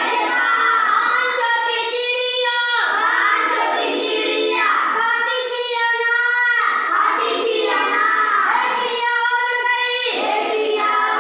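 A child singing a song in high-pitched phrases of held notes, with short breaks between the lines.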